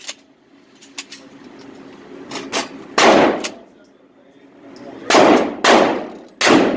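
Gunshots in an indoor shooting range, each ringing on briefly after the crack. There is one about three seconds in, then three more in quick succession near the end, with a few lighter sharp clicks before them.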